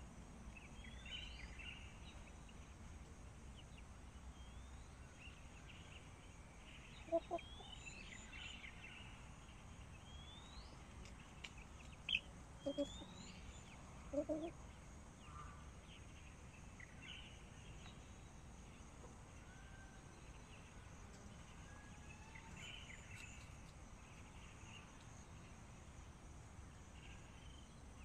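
A Sanhuang hen clucking a few times, short low clucks in a cluster about halfway through, over a faint steady hiss. Short, high, rising chirps come and go throughout.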